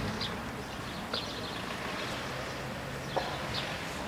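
Quiet outdoor ambience: small birds chirping briefly now and then over a faint steady low hum, with a couple of light knocks.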